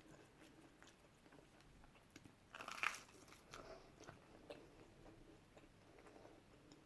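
Faint chewing of takeaway food close to the microphone, with a louder crunchy bite about three seconds in.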